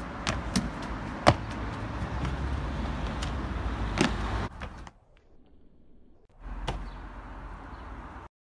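Steady outdoor rumble broken by a few sharp impacts of a parkour runner's feet landing and pushing off on stone and concrete, the loudest about a second in. In the middle the sound drops almost to nothing for about a second and a half, then the rumble returns with another impact.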